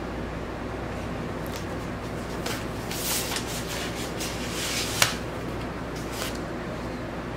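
A vinyl LP's paper inner sleeve and cardboard album jacket rustling and sliding as they are handled, with a sharp tap about five seconds in, over a steady low hum.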